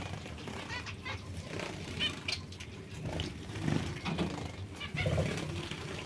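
Zebra finches calling with many short, nasal, high-pitched calls, and a few deeper calls in the second half that are the loudest sounds.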